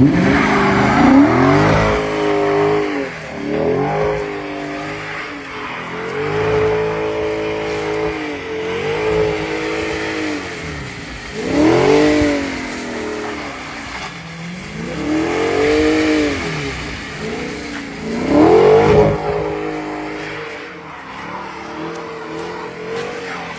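Car engine revving up and down again and again as the car is slid around in snow, the loudest surges about halfway through and near the end, then settling lower.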